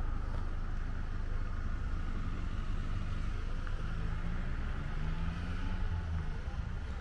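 A steady low outdoor rumble, with a low hum coming up in the middle and fading near the end.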